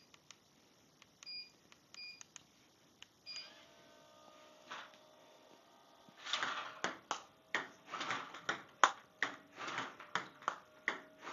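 A few short electronic beeps, then from about six seconds in the quick clicks of table tennis balls striking the table and a rubber paddle, two or three hits a second, as backspin balls are looped back with a sidespin loop.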